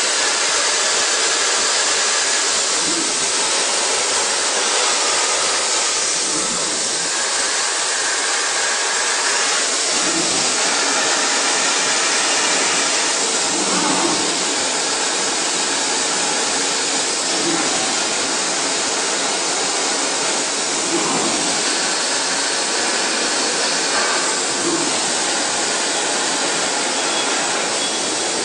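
CNC machining centre running a drilling program: a steady, loud hiss with faint high whining lines and a faint low sound recurring about every three and a half seconds.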